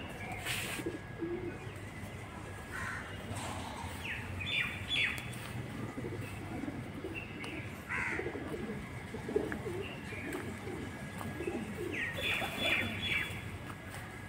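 Small birds chirping in short bursts every few seconds, over pigeons cooing low in the background.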